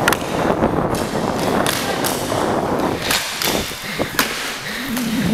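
Roller hockey play heard from a skating player's camera: inline skate wheels rolling on the rink floor under a steady rushing noise, with several sharp knocks of sticks and puck.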